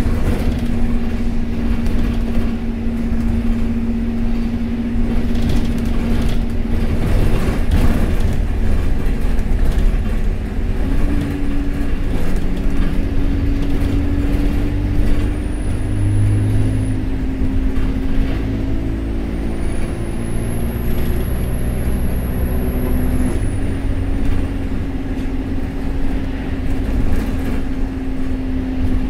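Metroline bus DE1150 under way, heard from inside the passenger saloon: a steady engine and road rumble whose engine note shifts in pitch a few times as the bus changes speed. A faint high whine rises, holds and falls away in the middle.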